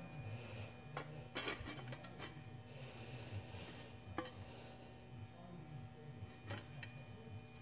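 Light clinks and knocks of sheet metal being handled against a steel bracket on a steel welding table, a handful of scattered taps over a low steady hum.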